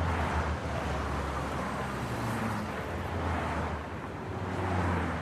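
Road traffic noise: a steady rumble of cars going by, swelling twice, once at the start and again near the end.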